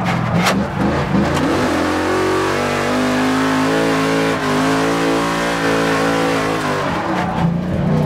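Drift car's engine heard from inside the cabin, revving up and down over the first second and a half, then held at high revs for several seconds over a steady hiss, and easing off near the end.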